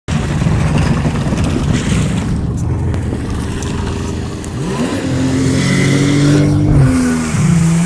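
Personal watercraft engines running at speed over churning water. About halfway through, one engine's pitch rises, holds high, then drops near the end as a 1996 Yamaha Wave Venture 1100 makes a close high-speed pass.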